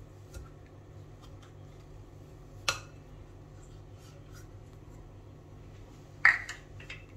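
A plastic measuring scoop handling cookie dough in a glass mixing bowl: two sharp knocks, the louder one about six seconds in, with faint small ticks between them, over a low steady hum.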